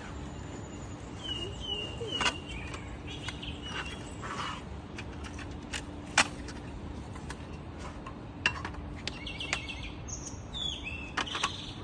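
Birds chirping in short high calls, about a second in and again near the end. Scattered sharp clicks and knocks are heard, the loudest about six seconds in, over a faint steady hum.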